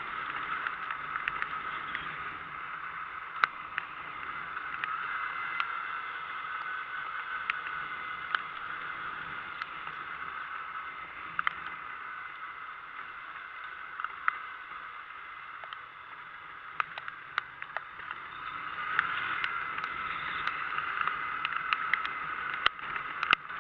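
Steady rushing noise of rain and wind while riding through a rain shower, with scattered sharp ticks of raindrops striking the microphone. It eases slightly past the middle and swells again near the end.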